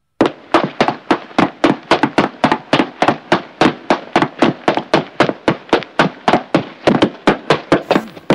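Rapid, regular knocking on a wooden bed headboard, about four blows a second, each with a short ringing tail.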